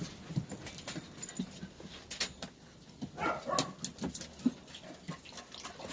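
A dog making a few short, pitched sounds about three seconds in, amid scattered light taps and clicks.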